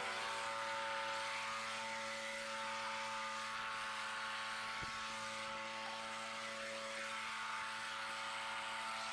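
Small engine running steadily, a faint even hum. One faint click about five seconds in.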